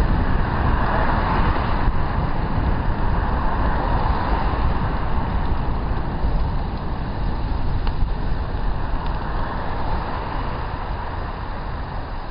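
Wind rushing over a helmet-mounted camera's microphone on a moving road bike, with tyre hiss from the road; it eases off gradually near the end.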